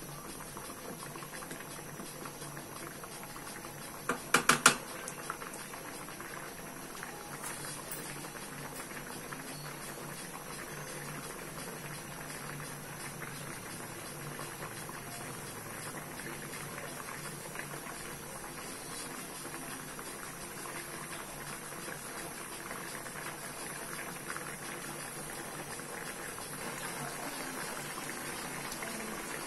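Coconut milk with squash and string beans simmering in a metal wok, a steady bubbling. A quick cluster of sharp knocks about four seconds in.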